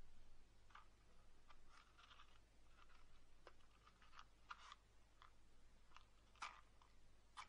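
Faint, scattered light clicks and small crackles of small objects being handled by hand, over near silence, with a cluster about halfway through and two sharper clicks near the end.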